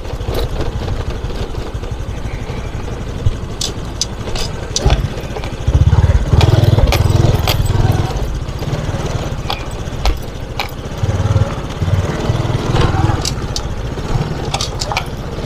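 Moped engine running steadily, overlaid by low wind rumble on the microphone that swells louder twice, with a few light clicks.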